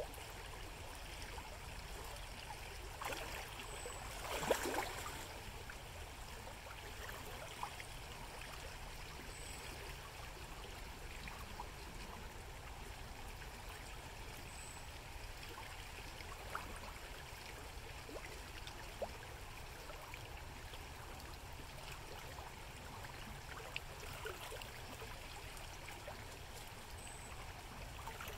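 Shallow river running steadily over gravel, with a brief splash about four seconds in and a few small splashes later, from spawning coho salmon breaking the surface in the shallows.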